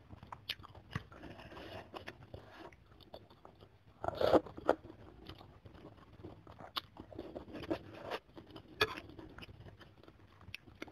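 Close-miked eating: rice vermicelli from spicy chicken soup being slurped and chewed, with scattered small wet mouth clicks. The loudest burst of eating noise comes about four seconds in, with smaller ones near the end.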